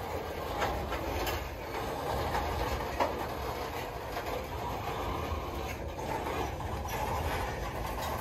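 Freight cars rolling past on steel wheels: a steady rumble with a few sharp, irregular clacks as the wheels cross rail joints.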